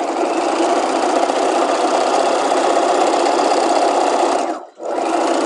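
Domestic sewing machine running at a steady speed as it stay stitches a straight line down a skirt panel. It stops briefly near the end, then runs again for about a second.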